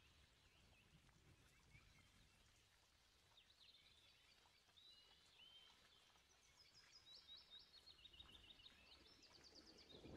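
Faint chirping and twittering of small birds, with quick runs of rapid notes in the second half, over near silence.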